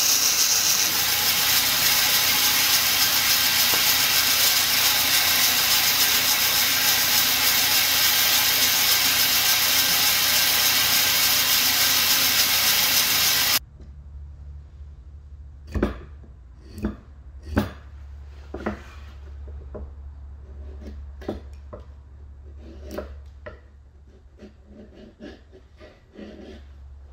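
Band saw running and cutting plywood, a loud steady rushing noise that stops abruptly about 13 seconds in. After it, a hand chisel paring end grain of the plywood, a scatter of short sharp cutting clicks over a low hum.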